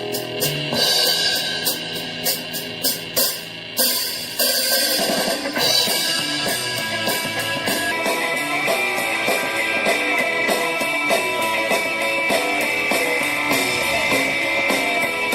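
A rock-style song with drums and guitar played back through a small portable Bluetooth speaker. It opens with separate sharp drum hits, and about four seconds in the full band comes in with strummed guitar.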